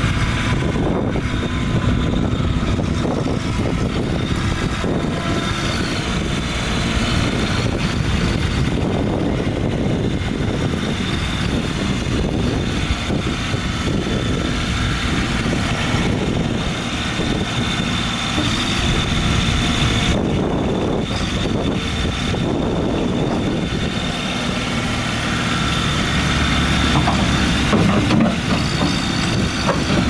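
Toro Dingo TX 1000 mini skid steer running steadily while it is driven on its tracks and raises and lowers its loader bucket, with a faint steady high whine over the engine.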